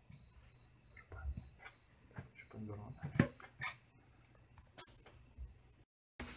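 A cricket chirping steadily, about three short high chirps a second, with soft knocks and rustles of tomatoes being packed into a plastic barrel and one sharper click a little past the middle.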